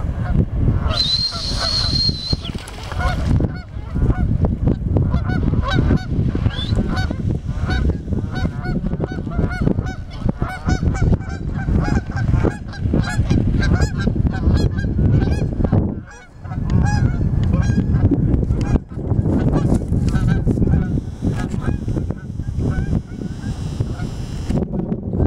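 A flock of geese honking over and over, many short calls overlapping, as a herding dog chases them, over a heavy low rumble. A brief high steady whistle sounds about a second in.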